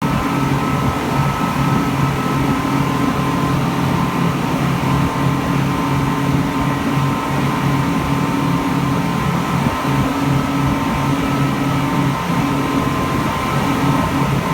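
Speedboat engine running steadily at speed, a constant loud drone with a low hum.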